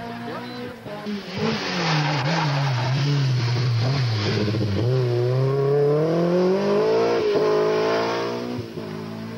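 Rally car engine running hard close by: the note falls as the car slows through a hairpin, then climbs as it accelerates away, with a short break in the rising note about seven seconds in.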